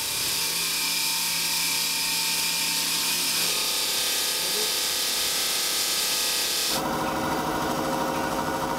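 Water-cooled diamond saw cutting through blown glass, a steady high hiss. About seven seconds in it changes to a water-fed flat grinding wheel with the glass pressed onto it, a lower whirr with several steady tones.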